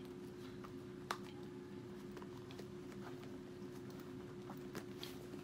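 Faint handling of a leather handbag while it is packed: soft rustles and light clicks, with one sharper click about a second in, over a steady low hum.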